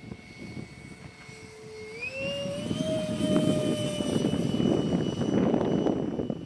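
Radio-controlled A-4 Skyhawk model jet in flight, its engine giving a steady high whine that rises in pitch about two seconds in as the throttle comes up. A loud rushing sound follows as the jet flies closer.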